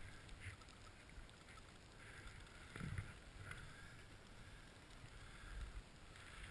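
Faint swishing of skis sliding and scraping through soft, tracked-up snow, coming and going in short strokes over a low rumble.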